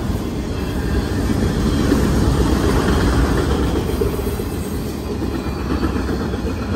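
Freight train of autorack cars rolling across a steel girder bridge: a steady, loud rumble of wheels on rail.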